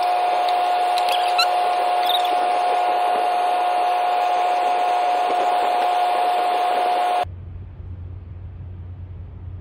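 A loud, steady machinery hum with one constant mid-pitched tone running through it. It cuts off suddenly about seven seconds in, giving way to a quieter low drone.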